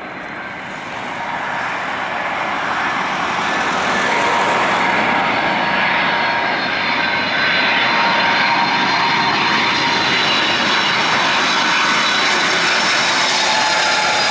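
Airbus A310-304 jet airliner on final approach, its General Electric CF6-80C2 turbofans giving a steady jet engine noise that grows louder over the first few seconds as the aircraft nears, then holds. A faint engine whine runs through it and begins to fall in pitch near the end as the plane passes close.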